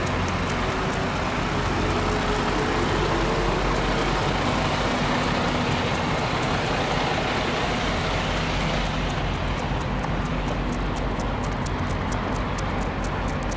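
Steady low drone of a large vehicle engine running, with a broad rushing noise over it. From about nine seconds in, a faint, quick, even ticking sits on top.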